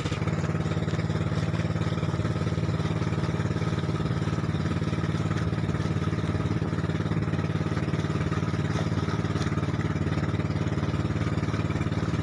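Inboard engine of a motorized outrigger boat (bangka) running steadily at cruising speed, an even, unchanging drone.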